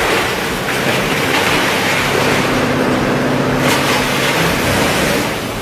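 Large 400-horsepower wood chipper running under load, chewing through logs and branches: a loud, dense noise, with a steady hum held for about two seconds in the middle.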